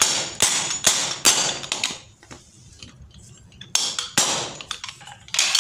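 Sharp metallic knocks as a pipe is driven down onto a new ball bearing to seat it on a monoblock water pump motor's rotor shaft. About five quick knocks, a pause of over a second, then a few more. The replacement bearing is being seated fully on the shaft, in place of an old one that had become noisy.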